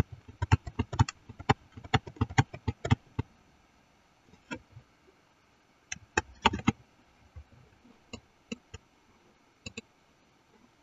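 Computer mouse clicking: a quick run of clicks in the first three seconds, a short cluster about six seconds in, then a few scattered single clicks.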